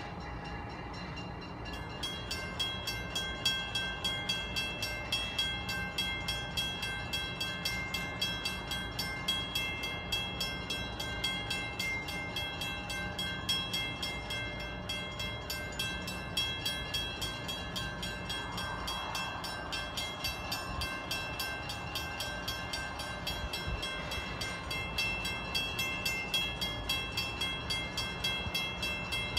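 Railroad grade-crossing warning bell switching on about two seconds in and ringing repeatedly, about twice a second, over a low steady rumble.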